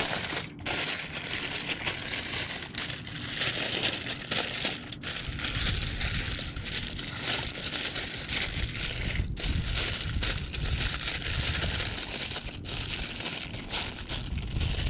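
Aluminium foil being folded and crimped by hand into a packet, crinkling and crumpling continuously, with a low rumble joining in about halfway through.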